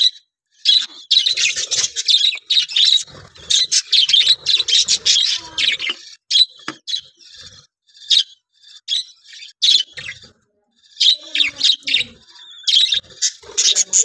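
A flock of budgerigars chattering with rapid high chirps. The chatter is dense at first, thins out through the middle with a short lull, and picks up again near the end.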